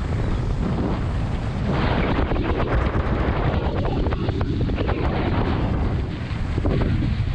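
Wind buffeting the microphone over the running engine and road noise of a pickup taxi, heard from its open back while it drives. The rush grows stronger for a few seconds in the middle.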